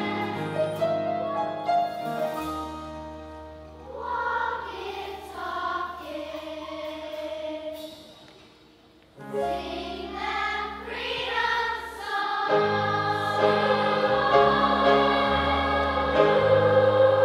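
Children's choir singing with piano accompaniment. The music fades to a brief hush about halfway through, comes back suddenly, and builds louder and fuller toward the end.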